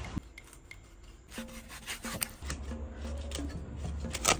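A steel cleaver scraping and slicing raw fish fillet on a wooden chopping block, a rasping, rubbing sound. A few sharp knocks of the blade on the wood come through, and it grows louder after the first second or so.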